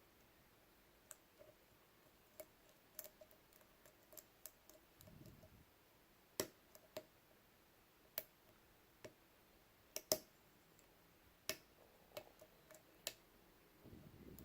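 Faint, irregular small metallic clicks of a pick hook working the pin tumblers of an ACE A527 round-body padlock under tension, as individual pins are lifted and set.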